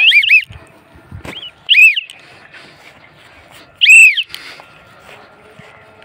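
Cockatiel giving loud, arching whistled contact calls that rise and fall in pitch: two in quick succession at the start, then one about two seconds in and another about four seconds in.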